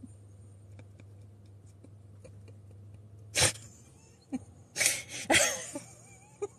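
A few short breathy vocal bursts from a person, one about three seconds in and a cluster a second or so later, over a faint low steady hum.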